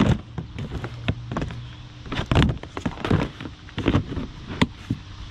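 Garden hoses being stuffed into a plastic storage tote and its plastic lid set back on: a string of plastic knocks and thunks, the loudest right at the start and another about two and a half seconds in.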